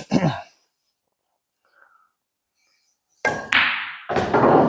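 A pool shot: after a near-silent pause, the cue tip strikes the cue ball, which clicks into the object ball and comes off the rail. The object ball drops into a pocket. Sudden knocks and clatter come in the last second and a half.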